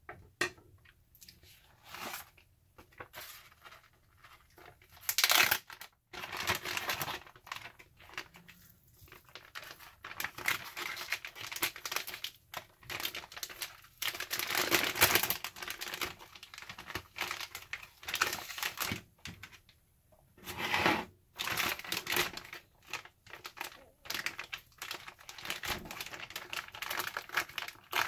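Clear plastic zipper freezer bag crinkling and rustling in the hands as a raw ribeye steak is pushed into it, in irregular bursts with short pauses between.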